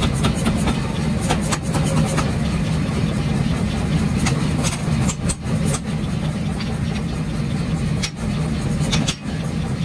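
Power hammer running with a steady low hum, its ram striking a red-hot steel pickaxe blank on the anvil in sharp, irregularly spaced blows.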